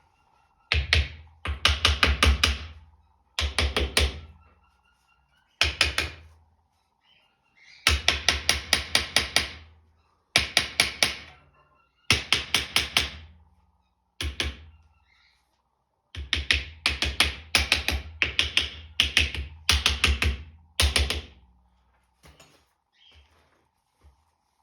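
Bursts of rapid knocking: five to eight sharp strikes at about six a second, the groups coming every one to two seconds and thinning out near the end, over a faint steady hum.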